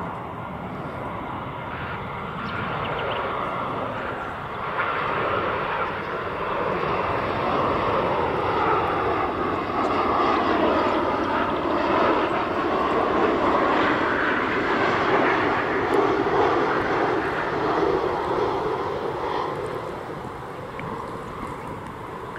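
Virgin Australia Boeing 737-800 on final approach with gear down, its CFM56-7B jet engines whining and rumbling as it flies past. The noise builds to a peak near the middle and then fades, and the engine tones bend lower in pitch as it passes.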